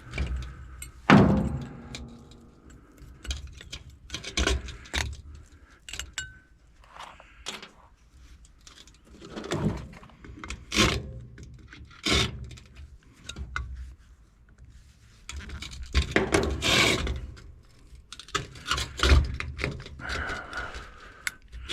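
Irregular clinks, knocks and scrapes of metal parts and hand tools being handled while an air conditioner is dismantled for scrap.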